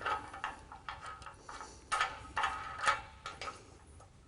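Irregular metallic clicks and clinks of steel hardware, an M16 bolt, flat washer and nylon nut, being handled and fitted against a steel mounting bracket, several with a short metallic ring.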